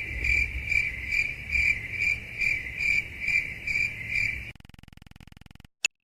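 Cricket chirping sound effect, the stock 'awkward silence' crickets: an even, high chirp about twice a second that stops about four and a half seconds in. A faint buzz follows, then one short click near the end.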